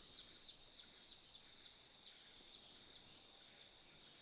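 Faint rural ambience: a steady, high-pitched insect drone, with a run of short repeated chirps, about two a second, that fade out after a couple of seconds.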